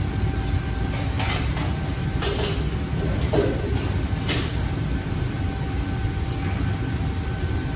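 A metal ladle clanking and scraping against a steel wok four or five times in the first half, over a steady low rumble from the wok burners and extraction hood.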